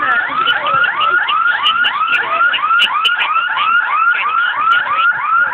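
An electronic alarm sounding a fast, even run of short rising whoops, about four a second.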